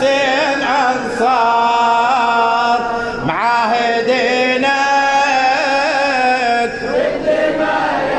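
A male Husseini radood chanting a Muharram latmiya lament in Arabic into a microphone: one long ornamented vocal line with a wavering pitch, with a brief break and upward glide about three seconds in.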